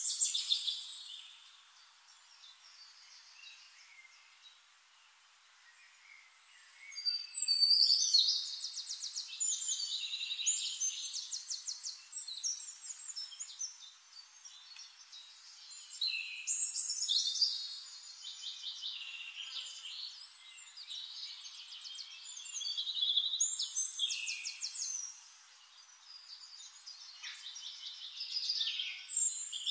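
High chirping and trilling like birdsong, coming in phrases a few seconds long with quieter gaps between them; faint for the first several seconds.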